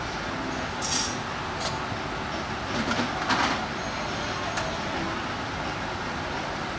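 Restaurant dining-room ambience: a steady background din, broken by a few brief clicks and clatters, the loudest about three seconds in.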